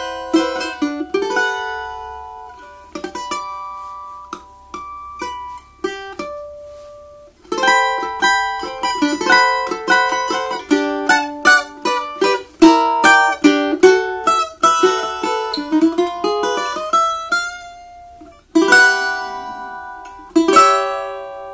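Imbuia-bodied cavaquinho played solo with a pick: strummed chords and quick picked melodic runs. The playing thins to single notes for a few seconds early on, gets busier from about a third of the way in, and breaks briefly before ringing chords near the end.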